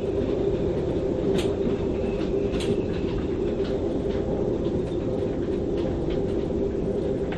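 Storm wind gusting over 35 knots through a moored sailboat's rigging: a steady low howl with a fainter whistle above it. Scattered sharp ticks and knocks sound through it, about a second or so apart.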